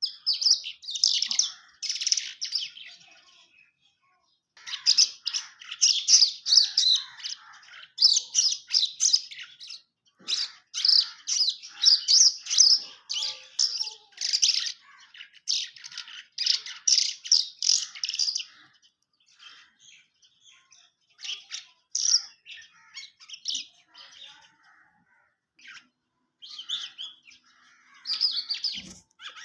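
A songbird, the 'mushadi' Irani singing bird, singing phrases of fast, high twittering notes a few seconds long with short pauses between them. About two-thirds of the way through the song thins to quieter scattered notes, then picks up again near the end.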